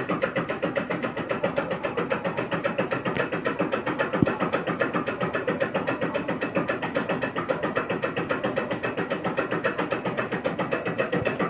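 An engine running steadily at idle, a rapid, even pulse that does not change, with one sharp knock about four seconds in.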